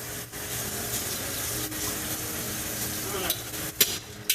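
Chow mein noodles sizzling in a hot pan, a steady hiss, with a couple of sharp utensil clacks near the end.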